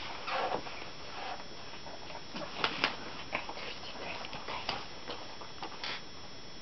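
Scattered light taps, clicks and rustles from a small kitten playing on a rug and on newspaper, with two sharper clicks close together near the middle.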